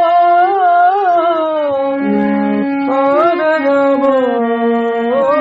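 Devotional nam kirtan: a voice sings long, wavering melodic phrases over steady held accompanying notes that change in steps, with a break in the phrase about two seconds in.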